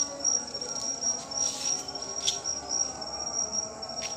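Crickets trilling steadily in one high, slightly pulsing note, with faint distant voices and a few brief sharp clicks.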